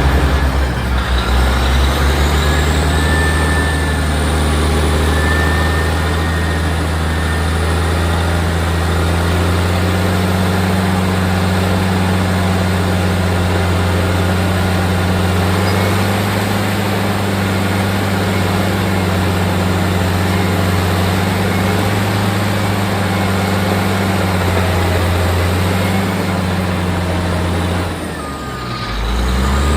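Caterpillar bulldozer's diesel engine running steadily under working load. Near the end the engine note drops briefly and then comes back up.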